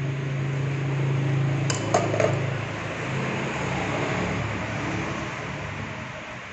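Three sharp clinks of crockery and a metal utensil about two seconds in, over a steady low hum and hiss that eases off near the end.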